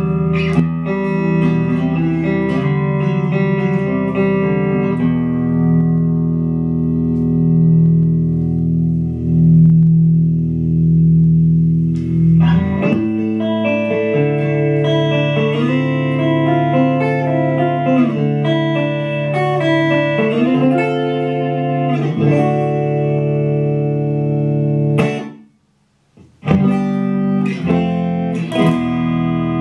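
Fender Stratocaster electric guitar played through effects pedals and a Fender Champion 100 amp. Held, ringing chords give way about 13 seconds in to busier chord-and-note playing, and the guitar stops dead for about a second near the end before starting again.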